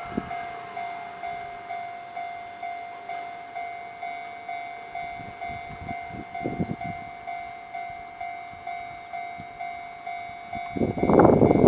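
Japanese level-crossing warning bell ringing steadily, one evenly repeated ding a little under twice a second. Near the end the bell stops and the loud rush of a train passing over the crossing takes over.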